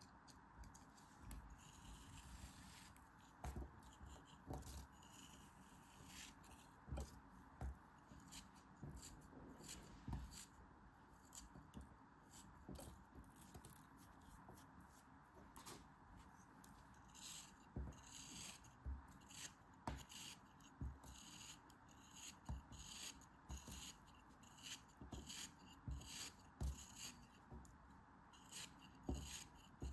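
Quiet, irregular crinkling, snipping and rubbing of packaging being opened by hand, dozens of short crackles over a faint steady hiss.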